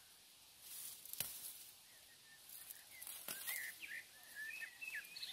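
Tall grass rustling and flower stems snapping as wildflowers are picked by hand, with sharp snaps about a second in and about three seconds in. A small bird chirps in short, varied rising and falling notes through the second half.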